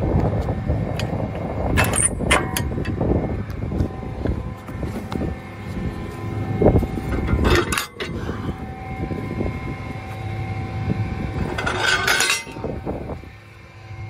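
Tractor running under a steady mechanical drone, with a few sharp metal clanks and rattles from the grain drill's frame and wheels as it is set into road-transport position.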